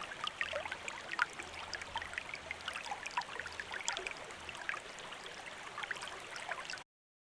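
A stream of water flowing and trickling, a steady wash filled with many small quick gurgles and splashes. It cuts off suddenly near the end.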